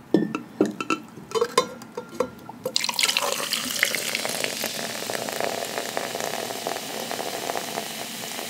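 A few light clicks and taps of handling the drink, then, about three seconds in, a sudden, steady fizzing hiss of carbonated seltzer water poured out and bubbling.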